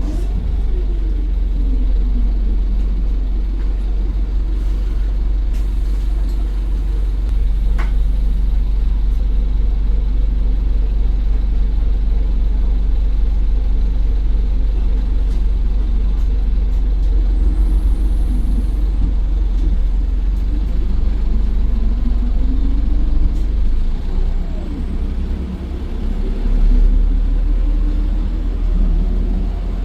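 Optare Versa bus's Mercedes-Benz OM934 5.1-litre diesel engine and Allison 2100 automatic gearbox under way, with a heavy low rumble. The engine note falls near the start and climbs twice in the second half as the bus accelerates, with a single click about eight seconds in.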